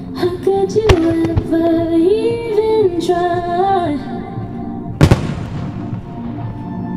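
A song with a sung melody plays for a music-synchronised fireworks show. Firework shells burst twice with sharp bangs, about a second in and, loudest, about five seconds in, the second followed by a short rumbling tail.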